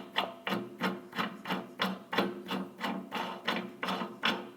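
Even metallic clicking, about three clicks a second, each with a short ring, as a threaded metal support leg is turned in under the embroidery machine head.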